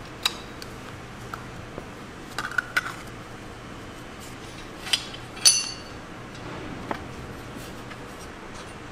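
Metal sword fittings clinking and tapping as they are handled and fitted onto a sword: scattered sharp metallic clicks, a quick cluster about two and a half seconds in, and the loudest about five and a half seconds in with a brief ring.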